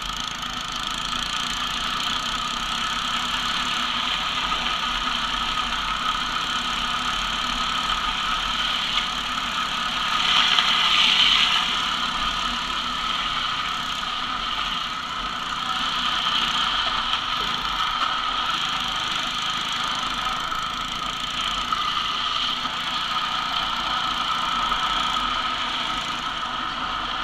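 Small dirt bike's engine running steadily while towing, heard together with the rolling rumble of a plastic toy jeep's wheels on asphalt; it grows louder for a moment about ten seconds in.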